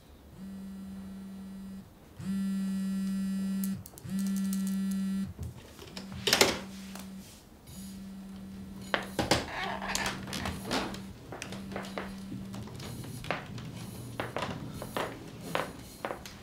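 A mobile phone vibrating with an incoming call: a steady buzz pulsing on for about a second and a half with short gaps, two of the pulses much louder than the rest. From about six seconds in, knocks and clicks of a manual wheelchair being wheeled across a wooden floor.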